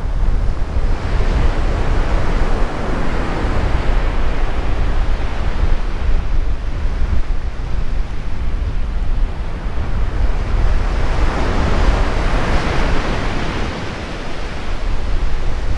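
Surf breaking and washing up a sandy beach, with wind buffeting the microphone in a steady low rumble. The hiss of the surf swells up twice, once shortly after the start and again near the end.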